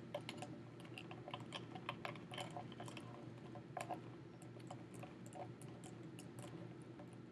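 Ice chunks clicking and knocking against a temperature probe and the foam cup as the ice water is stirred: light, irregular ticks, several a second.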